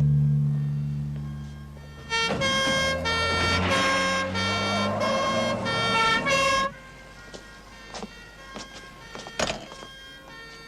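A two-tone emergency siren, loud for about four seconds, alternating between two pitches, then fainter as it carries on with a few clicks. A low held music chord fades out at the start.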